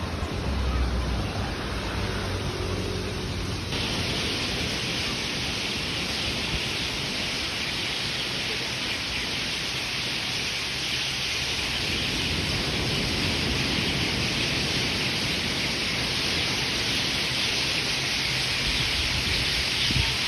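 Steady rushing hiss of water, growing brighter about four seconds in.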